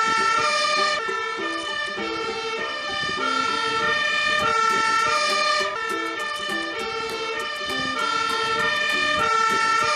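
Fire engine's two-tone siren sounding continuously, its notes stepping back and forth between a high and a low pitch.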